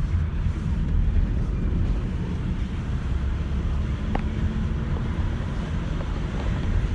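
Steady low rumble of road and engine noise heard inside the cabin of a moving van, with a faint click about four seconds in.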